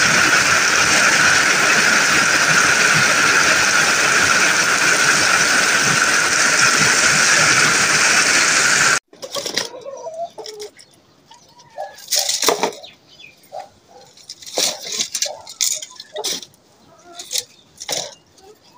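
Heavy rain falling in a steady loud hiss that cuts off abruptly about nine seconds in. It is followed by scattered sharp cracks and clatter of dry twigs and sticks being snapped and laid down as firewood.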